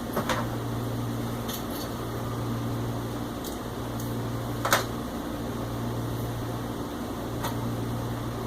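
Steady low mechanical hum that dips briefly about every second and a half, with a few light clicks and taps of small screws, washers and acrylic parts being handled during assembly. The sharpest click comes just under five seconds in.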